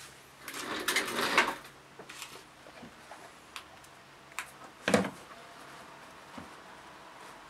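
A dried wild boar hide handled on a wooden workbench: it rustles and flaps about a second in, then a few light clicks follow, and one sharp knock comes about five seconds in.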